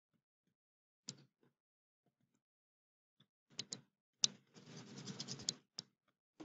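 Faint scattered taps and clicks of a stylus on a tablet screen, with a short scratchy rustle of the pen dragging across the glass about halfway through as the notes are scrolled.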